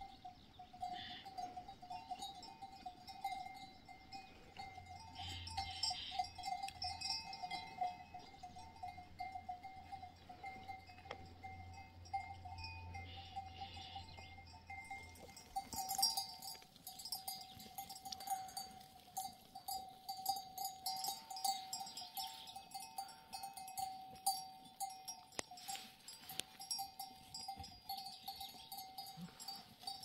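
Livestock bells on a flock of sheep and goats jingling and clanking steadily as the animals graze and move. Many small clinks ring over the top, busier in the second half.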